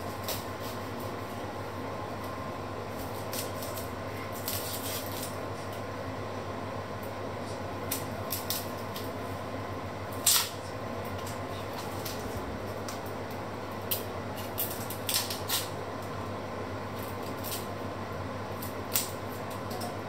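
Small knife peeling onions by hand: scattered short scrapes, crackles and taps of the blade and dry papery skins, with a sharper knock about halfway through. A steady low hum runs underneath.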